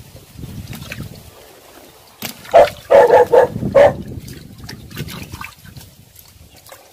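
Muddy water sloshing as hands sort fish in a basin, then a burst of four or five short, loud animal cries between about two and four seconds in.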